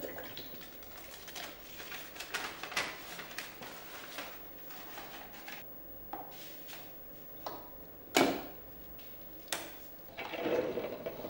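Small plastic clicks, taps and knocks of handling a Braun drip coffee maker and its filter holder and lid while it is filled and set up, with one sharp knock about eight seconds in.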